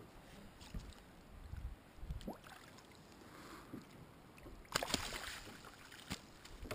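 A pollock being netted beside a kayak: a few small knocks and faint water movement, then a brief loud splash about five seconds in as the fish is scooped into the landing net.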